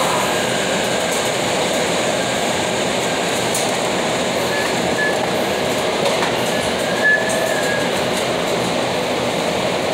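Loud, steady mechanical rumble and clatter, with a couple of brief high squeals about midway and again near the end.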